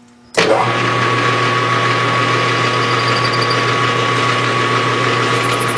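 Metal lathe switched on about half a second in and running steadily at a spindle speed of 600 RPM, a constant motor hum with a steady high whine.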